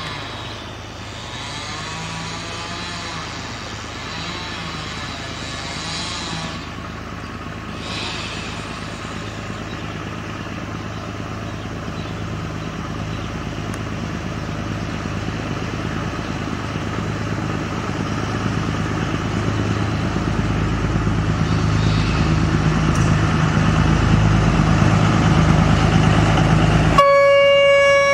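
Narrow-gauge diesel locomotive approaching, its engine drone growing steadily louder as it nears. Near the end it sounds its horn, one steady tone held for about two seconds.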